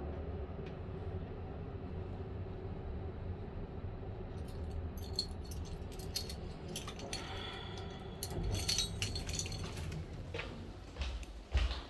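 Lift car running with a steady low hum, overlaid from about four seconds in by light metallic clinking and jingling, with a knock near the end.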